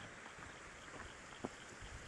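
Faint bushland ambience: a steady hiss with a high-pitched chirp repeating about four times a second, and a soft tap about one and a half seconds in.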